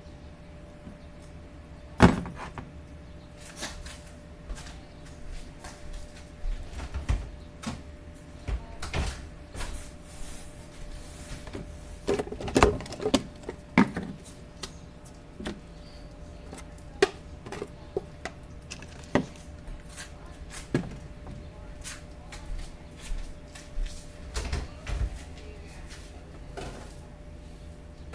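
Kitchen handling sounds: scattered clicks, knocks and clatter of items being picked up and set down on a counter, loudest about two seconds in and again around twelve to fourteen seconds in, over a faint steady hum.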